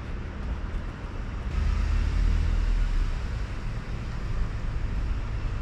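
Steady low rumble under a faint even hiss, growing louder about one and a half seconds in.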